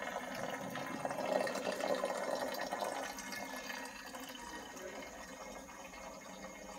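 Homemade jamun fruit wine running through a plastic siphon pipe into another bottle, a steady liquid trickle that is loudest for the first three seconds and then fades.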